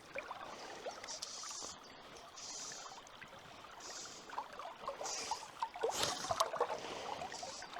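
Faint steady flow of river water, with small scattered clicks and rustles of handling and a soft high hiss that swells and fades every second or so.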